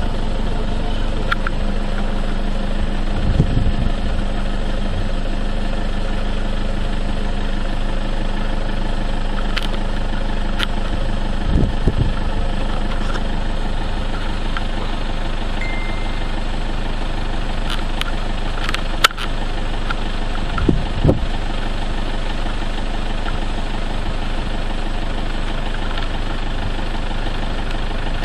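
A vehicle engine running steadily with a low, even hum, with a few brief thumps and knocks scattered through it.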